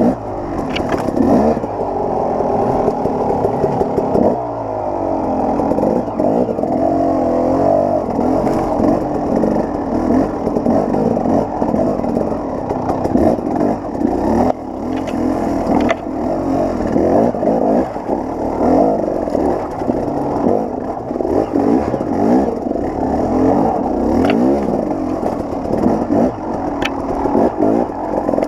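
KTM 300 XC-W two-stroke dirt bike engine, fitted with an added clutch weight, revving up and down as it pulls up a steep rocky trail, with scattered knocks and scrapes.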